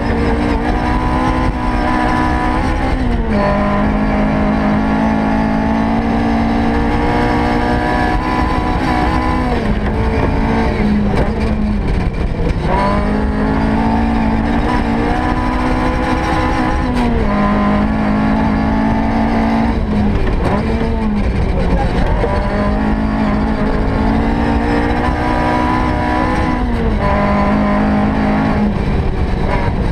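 S1600 rally car engine heard from inside the cabin, held at high revs. Its pitch drops sharply and climbs back about six times as the car lifts, shifts and brakes. Tyre and gravel rumble from the dirt road runs underneath.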